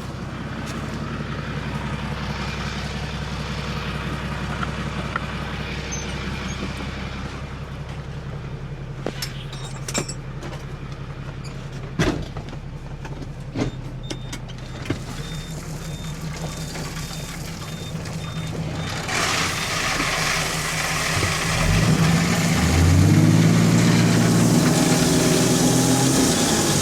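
Truck's diesel engine running steadily, with a few sharp knocks partway through and a faint, broken high beep. About two-thirds of the way in, a rushing noise builds and the engine revs up and gets louder.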